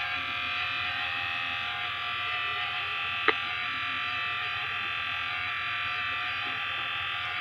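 Asus A556U laptop cooling fan running noisily, a steady whine made of several tones at once; the fan is in need of cleaning and lubrication. A single sharp click about three seconds in.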